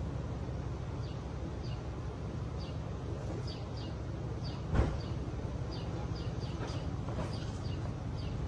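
A vehicle engine running with a steady low rumble, with small birds chirping in short repeated calls and a single sharp knock about five seconds in.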